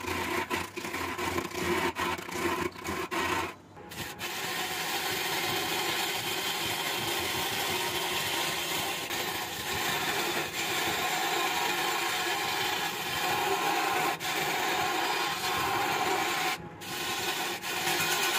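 Lathe gouge cutting into a large jackfruit-wood blank spinning on a wood lathe: a continuous rough shaving noise. It is choppy with short breaks in the first few seconds, drops out briefly about three and a half seconds in, and again near the end.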